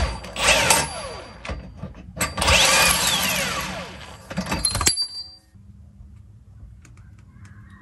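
Cordless 24-volt impact wrench running in two bursts as it backs out the rear differential mount bolts, a short one at the start and a longer one of about two and a half seconds that winds down in pitch. After that only a faint low hum remains.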